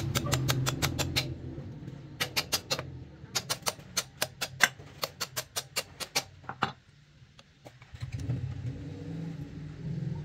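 Rapid clicking in several bursts of about eight to ten clicks a second, from hand work at a motorcycle's rear wheel hub and sprocket, over a low hum that drops out about seven seconds in and returns a second later.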